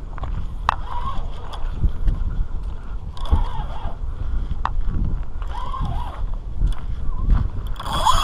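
Steady low rumble of wind buffeting the microphone by the water. Faint muffled voices come and go, with a few sharp clicks.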